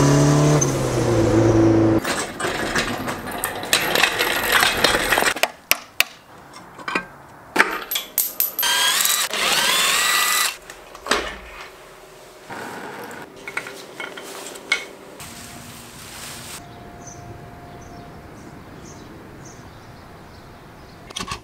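A Honda Civic's engine running, heard from inside the cabin while driving for about the first two seconds. Then a string of workshop sounds from an engine rebuild: sharp metal tool clicks and clinks, and a power tool spinning up with a rising whir about nine seconds in.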